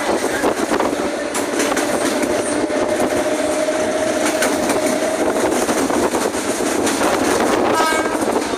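Toshiba electric train running at speed, heard from inside the passenger car: a steady rush of wheels on rail with clicks and rattles from the track. A faint steady tone runs through the middle, and a short higher-pitched tone sounds near the end.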